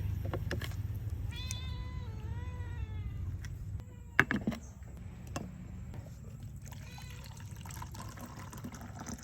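A few drawn-out, wavering animal calls, the clearest about two seconds in and a fainter one near the end, with a sharp knock about four seconds in and a low steady hum underneath.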